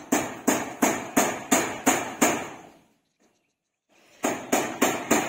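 Hammer nailing down corrugated metal roofing sheets: steady strikes about three a second, each ringing briefly, stopping for about a second and a half midway, then starting again.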